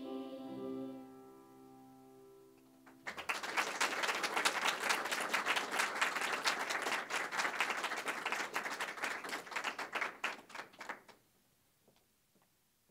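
A children's choir ends its song on a held chord, with the accompaniment dying away over the next couple of seconds. Then an audience applauds for about eight seconds, stopping fairly suddenly.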